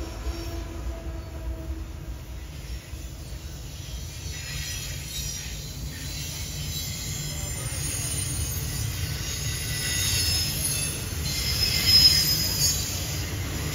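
Freight train rolling by, with a steady low rumble and high-pitched wheel squeal. The squeal grows louder near the end.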